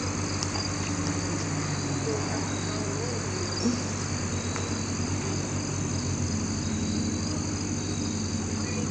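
Steady high chirring of crickets over the low, steady hum of an engine running, with one brief thud a little past the middle.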